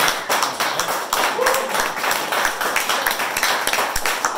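A small audience applauding, with dense, irregular hand claps.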